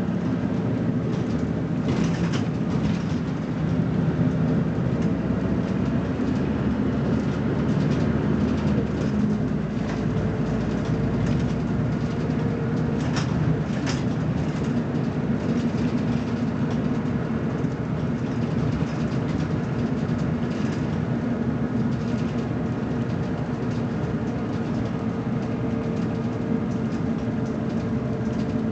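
Diesel engine of a BMC Belde 220-SLF city bus running under way, heard from inside the bus as a steady drone. A few short knocks or rattles sound about two seconds in and again around thirteen to fourteen seconds in.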